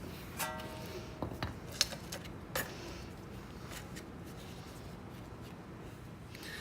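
Light clicks and clinks of hand tools and metal brake parts being handled while the rear caliper bracket is removed, with one short metallic ring about half a second in.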